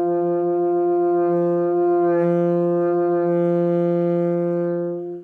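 Saxophone played by a learner, holding one long low note at a steady pitch, with a brief wobble about two seconds in. The note cuts off near the end.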